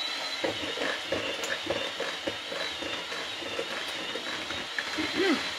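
A utensil scraping and knocking in a mixing bowl as cookie ingredients are stirred by hand, about three strokes a second. A steady high-pitched whine runs underneath.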